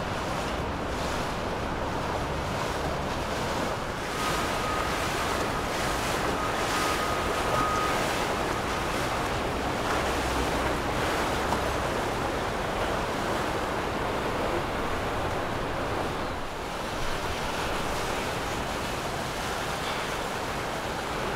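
Steady wind buffeting the microphone over the wash of water, with a faint thin high tone for a few seconds starting about four seconds in.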